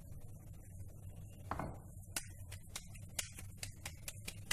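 Rolling pin working dough out into a flat round on a rolling board: irregular light clicks and knocks as the pin rolls and taps against the board, with a duller thud about a second and a half in, over a steady low hum.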